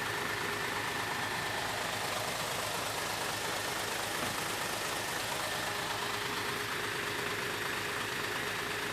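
Truck engine idling steadily under an even hiss, with a faint steady whine.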